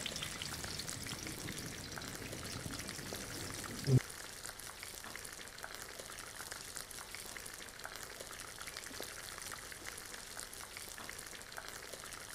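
Shami kababs shallow-frying in hot oil: a steady, even sizzle with fine crackles. A brief louder sound comes about four seconds in, and the sizzle is a little quieter after it.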